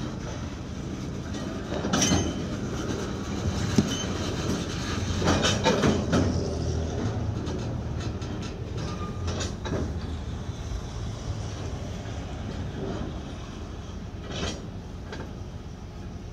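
Freight cars rolling slowly along the track and coming to a stop, with several metallic clanks and squeaks from the cars, the loudest about two seconds in and again around five to six seconds in.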